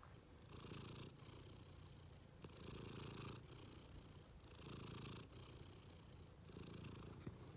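Domestic cat purring softly, the purr swelling louder four times, about every two seconds.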